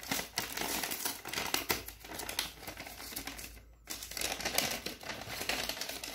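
Brown paper takeaway bag crinkling and crackling as hands handle its folded top, in dense irregular crackles with a brief pause about three and a half seconds in.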